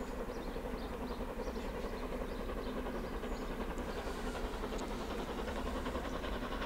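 Narrow-gauge steam locomotive approaching in the distance, a steady rumble of its running that grows slowly louder toward the end.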